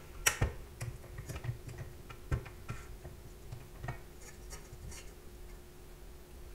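Scattered light taps, clicks and knocks of hands handling dough and kitchen utensils at a bench, over a faint steady hum.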